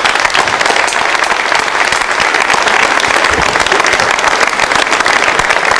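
Crowd applauding, dense and steady, cheering a successful booster separation of an Ariane 5 rocket in flight.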